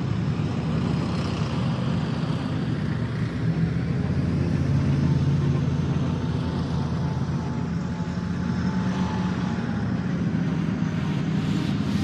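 Heavy construction machinery engines running in a steady low rumble. Near the end a regular ticking joins in.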